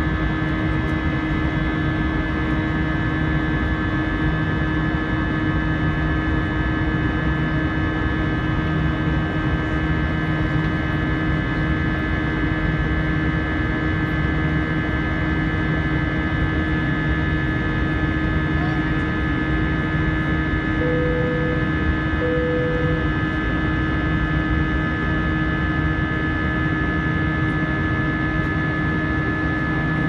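Steady cabin drone of an Airbus A320 in its climb after takeoff: IAE V2500 turbofan engine noise and airflow, with several steady humming tones. Two short tones sound about two-thirds of the way through.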